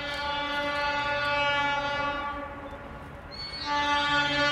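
Horn of a Budd RDC rail diesel car sounding two blasts: the first fades out a little after two seconds in, and a second starts near the end.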